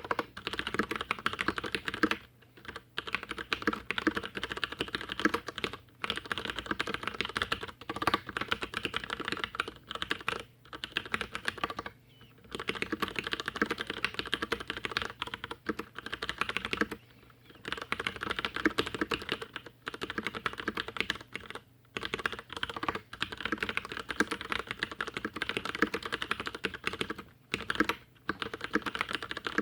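Fast continuous typing on a stock Leopold FC750R tenkeyless mechanical keyboard with Cherry MX Brown tactile switches, in runs of a few seconds broken by short pauses.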